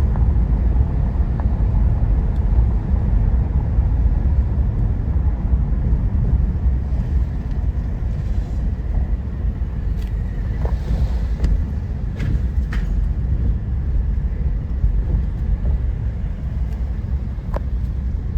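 Car driving along a street: a steady low rumble of road and engine noise, with a few faint clicks in the second half.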